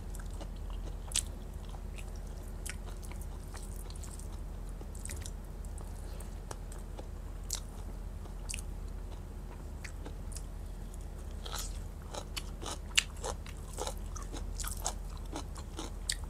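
A person eating by hand close to a clip-on microphone: chewing, with sparse small wet clicks and crunches of the mouth and of fingers mixing rice on the plate, coming more often after about eleven seconds. A steady low hum runs underneath.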